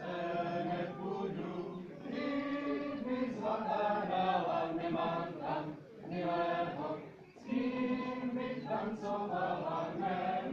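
A group of voices singing a Czech folk song together, in phrases with short breaks between them.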